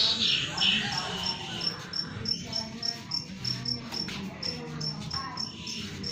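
A cricket chirping steadily in short high pulses, about three a second, with a brief louder rustle right at the start.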